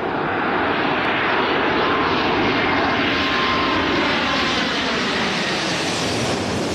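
Rolls-Royce Trent 800 jet engines of a Boeing 777-200ER on approach, passing low overhead: a loud jet rush that builds and then holds, with a faint whine on top.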